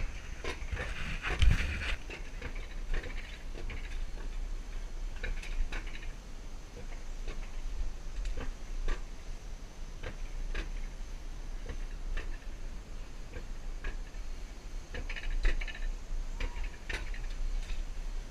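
Alpine coaster cart rolling down its metal rails: a steady low rumble with irregular clicks and knocks, and a heavier clunk about a second and a half in.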